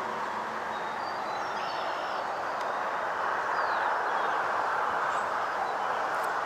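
Steady outdoor background rush with a few faint, high bird chirps and a short sliding whistle partway through.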